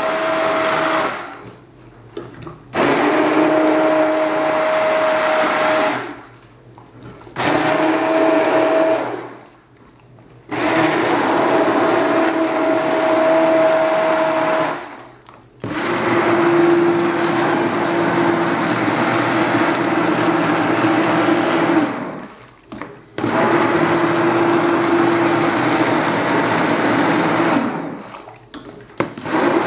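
Bosch ErgoMixx MSM66150 600 W immersion blender puréeing vegetable soup in a steel pot. Its motor hums steadily in runs of a few seconds and stops briefly six times before starting again.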